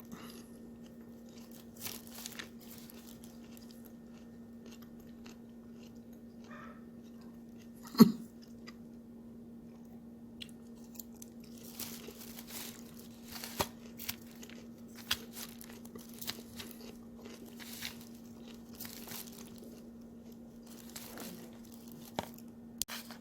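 Close-up chewing of a crunchy salad of lettuce and cucumber mixed with kimchi, in scattered crunches and bites, with one sharp knock about eight seconds in. A steady low hum runs underneath.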